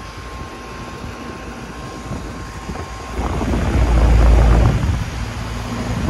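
Air conditioner condensing units running, a steady fan whoosh; from about three seconds in, a loud low rumble as the camera comes over the 2015 2.5-ton GMC unit's top-discharge fan and its air blows across the microphone.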